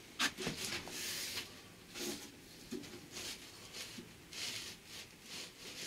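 Large sheet of cardboard rustling and scraping as it is handled and pressed against a wooden timber frame: a string of short, irregular scrapes, the loudest a sharp knock just after the start.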